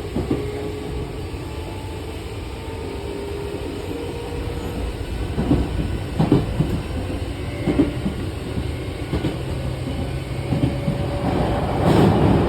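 Meitetsu 5000 series electric train pulling away, its motor tone slowly rising in pitch as it gathers speed, with several clacks over rail joints from about halfway through. A continuous rasping 'zazaza' noise runs the whole time it is moving; the uploader wonders whether it comes from the car's renewed static inverter (SIV).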